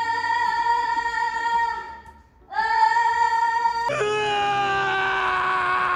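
Edited-in music with a long, steady held high note that fades out about two seconds in and comes back half a second later. About four seconds in it switches suddenly to a rougher held sound that slowly falls in pitch.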